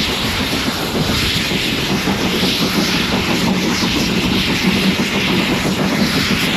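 Two steam locomotives, 7812 Erlestoke Manor and 5521, working hard up a gradient: a steady loud exhaust roar with a regular pulsing beat.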